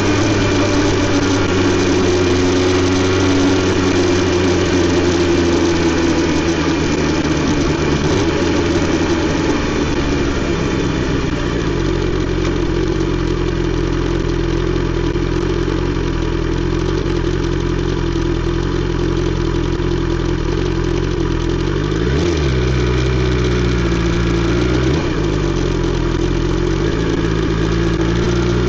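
BMW S 1000 XR inline-four engine through an Akrapovic exhaust, running at steady revs. Twice near the end the note briefly dips and comes back.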